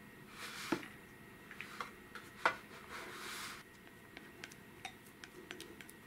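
Glass mixing bowl and silicone spatula knocking and scraping while a thick cream mixture is scraped out of the bowl into a metal cake pan: two sharp knocks, the louder about two and a half seconds in, two short stretches of scraping, then light ticks and clicks.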